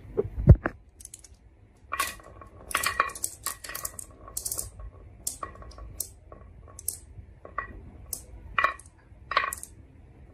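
Marbles clicking and clattering along a marble-run track in irregular clusters of sharp clacks, with a dull thump about half a second in.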